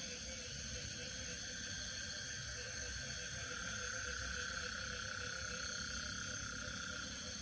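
Night chorus of insects and frogs: several steady high trills layered at different pitches, with a fast pulsing very high-pitched one over them and a low rumble underneath.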